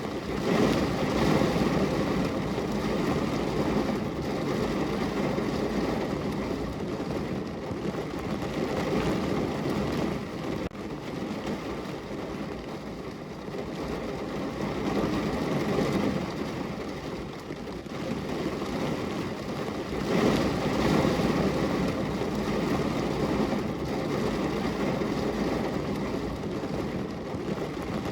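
Heavy rain drumming on a car's roof and windows, heard from inside the car, a dense steady patter that swells and eases every several seconds.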